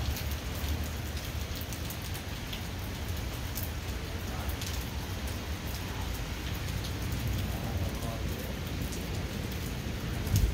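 Steady heavy rain falling on a station platform, with scattered drops ticking close to the microphone over a low rumble. There is a louder thump near the end.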